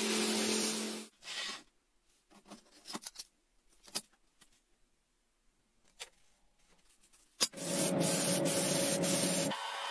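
Sandblasting cabinet's air nozzle hissing, cutting off about a second in. Then a quiet stretch with a few light clicks and taps from the small metal plates being handled. A sharp click about seven and a half seconds in, and a loud compressed-air hiss starts again.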